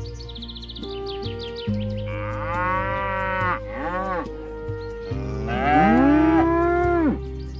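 Cows mooing twice: a long moo about two seconds in that falls away, with a short extra call after it, then a louder, longer moo about five seconds in. Soft background music with held notes plays underneath.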